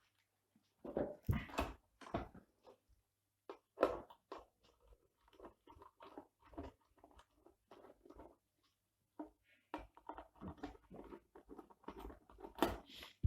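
Irregular clicks, knocks and scrapes of parts being handled inside an opened UPS cabinet as the extension holding its battery is taken out, with a few louder knocks about a second in, around four seconds in and near the end.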